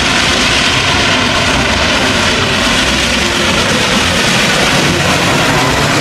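Steam locomotive giving off a loud, steady rush of steam.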